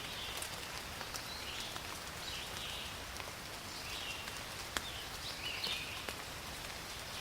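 Steady rain falling in a forest, with scattered drops ticking, one sharp tick a little before five seconds in. Over it, a short high animal call repeats every second or two.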